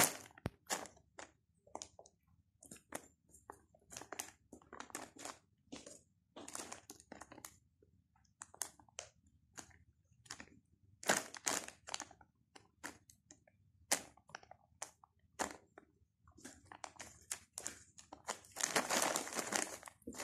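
Plastic shopping bag crinkling and rustling in short, irregular bursts as a kitten paws at it, climbs on it and burrows into it, with a longer stretch of continuous crinkling near the end.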